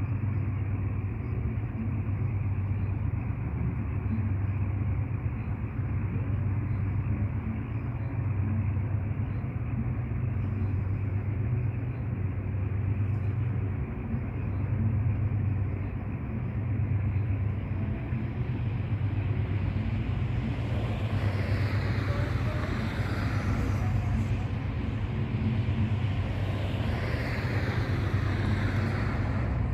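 Diesel freight locomotive running with a steady low drone. About twenty seconds in, and again near the end, a louder rushing noise rises and fades over it for a few seconds each time.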